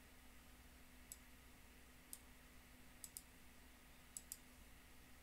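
Computer mouse clicking: six faint, sharp clicks, the last four in two quick double-clicks, over a faint steady hum.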